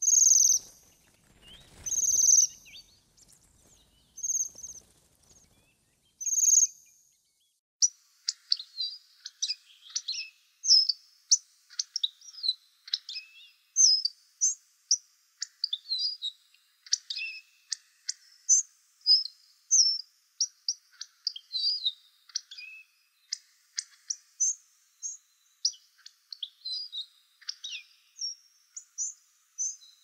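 Bohemian waxwings giving high trilling calls, four of them about two seconds apart. From about eight seconds in, a hawfinch's quick run of short, high, varied notes takes over.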